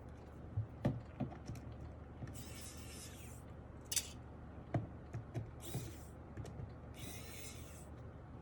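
Precision electric screwdriver (Wowstick) running in three short bursts to back out case screws, with scattered light clicks and knocks of handling the keyboard.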